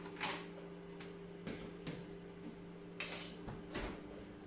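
A handful of light knocks and clicks of objects being handled and set down in a kitchen, the loudest near the start and about three seconds in, over a steady low electrical hum.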